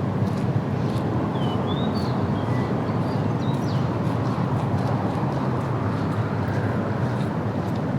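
Steady low rumbling noise, with a few short high bird chirps about two to four seconds in.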